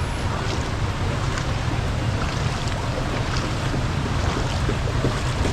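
Wind buffeting the microphone in a steady rumble, over an even wash of rushing floodwater.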